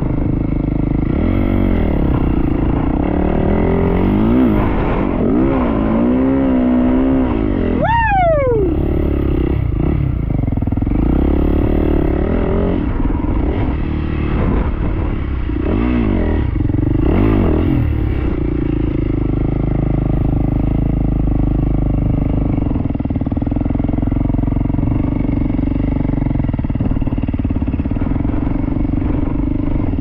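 Yamaha YZ450F single-cylinder four-stroke dirt bike engine revving up and down while riding, with one quick rev that falls away sharply about eight seconds in; through the second half it runs at a steadier pitch.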